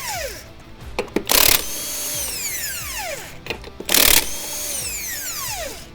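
Impact wrench with a 13/16 socket loosening wheel lug nuts: two short hammering bursts, about a second and a half and four seconds in, each followed by the motor's whine falling away as it spins down.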